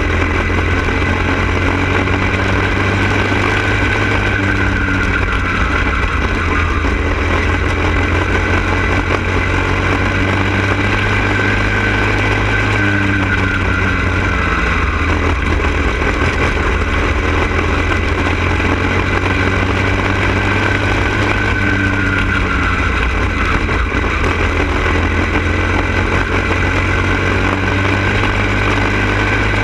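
Go-kart engine running hard under the onboard camera at racing speed, its pitch dipping and climbing again every several seconds as the kart slows into the turns and powers out of them.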